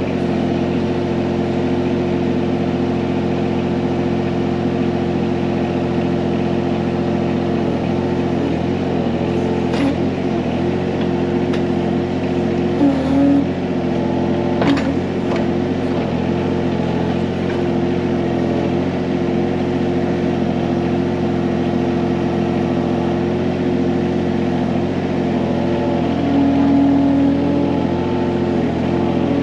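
John Deere 17G mini excavator's diesel engine running steadily while it works, its note wavering slightly; a couple of short sharp knocks come near the middle.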